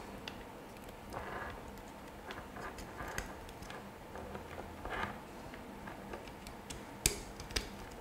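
A green pluggable screw-terminal connector is handled and pushed into the socket on the back of a plastic wall switch panel: faint scattered clicks and plastic rubbing, with two sharper clicks a little after seven seconds.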